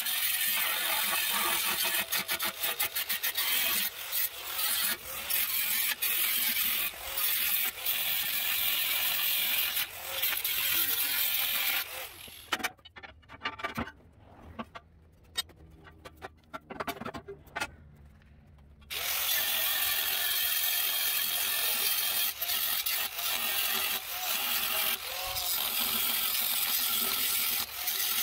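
Scraping and rubbing of tool work on metal parts, a dense run of rasping strokes that drops away for several seconds about halfway through and then resumes.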